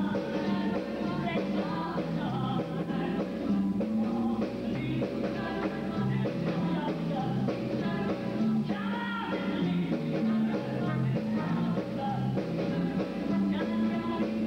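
Show choir singing an upbeat rock-and-roll oldies number in close harmony, over a band with a walking bass line and a steady beat.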